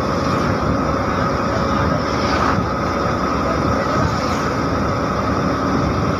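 Bus running along the road at speed, heard from inside the cabin: a steady engine and road rumble with a constant high whine over it.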